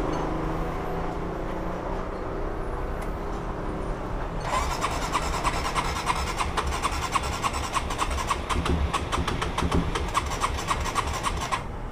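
Electric starter cranking a bored-out Honda CBR150's single-cylinder engine in a rapid, even beat for about seven seconds without the engine catching, then stopping abruptly: the bike has broken down and won't start. A low steady hum comes before the cranking.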